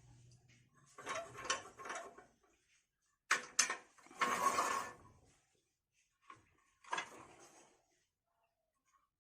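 Irregular workshop handling noises: short bursts of mechanical clicking and rasping, with two sharp knocks a little after three seconds in.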